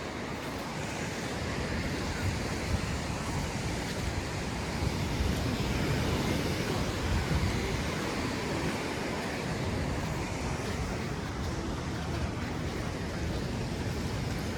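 Sea surf washing onto a sandy beach: a steady rush of waves.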